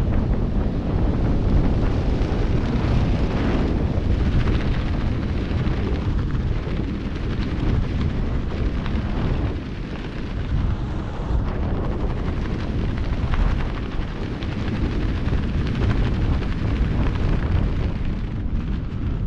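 Wind buffeting the helmet-mounted camera's microphone during a parachute canopy descent: a steady, loud low rumble of rushing air that eases a little near the end as the jumper nears the ground.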